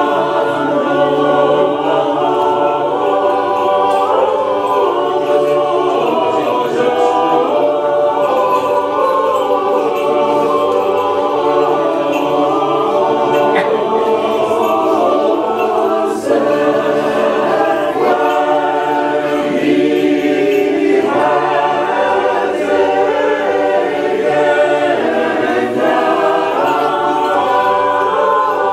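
Orthodox church choir singing a cappella in several parts, a hymn of long held notes without instruments.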